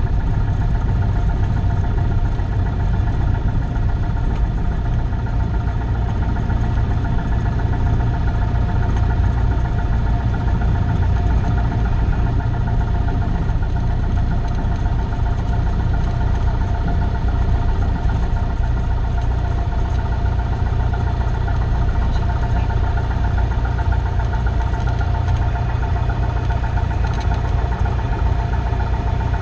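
Cessna 172's piston engine and propeller running steadily, heard from inside the cabin: a constant low drone with several steady tones above it.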